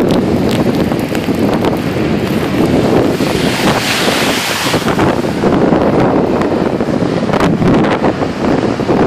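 Blizzard wind buffeting the microphone over breaking ocean surf, with a louder hiss lasting a couple of seconds about three seconds in.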